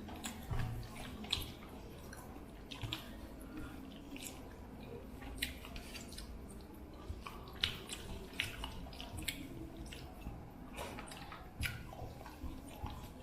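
Eating sounds: chewing with irregular wet mouth smacks and clicks, a few at a time, as rice and fish curry are eaten.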